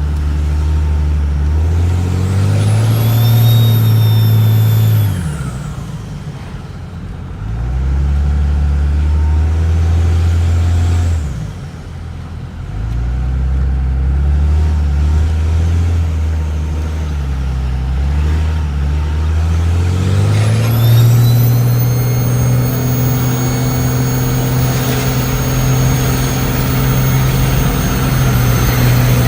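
Cummins diesel engine revved up and down several times, its Holset HX35 turbocharger whining. The high turbo whine rises as the revs climb about two seconds in and falls away as they drop, then from about twenty seconds in the engine is held at higher revs and the whine stays steady and loud.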